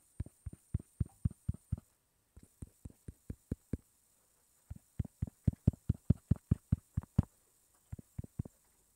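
Quick runs of dull taps on a tablet's glass screen, about five a second, in three or four bursts with short pauses between.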